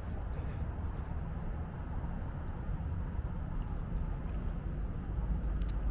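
Steady low rumble of outdoor street background noise, with a few faint clicks near the end.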